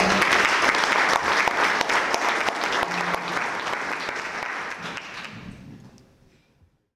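Audience applauding, many hands clapping at once, fading out from about four seconds in until it is gone near the end.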